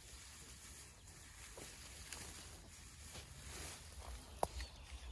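Faint rustling of a camouflage net and twigs being handled among branches, over a low rumble, with a sharp click about four and a half seconds in.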